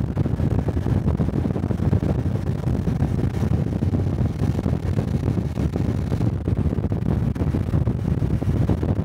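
Wind buffeting the microphone of a riding motorcycle, over the steady running of a Honda Cub 125 cc single-cylinder engine, with no breaks or changes.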